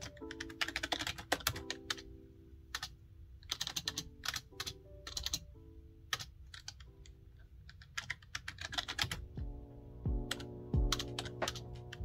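Typing on a backlit external computer keyboard: bursts of quick key clicks separated by short pauses. Soft background music with sustained chords plays underneath and picks up a low beat near the end.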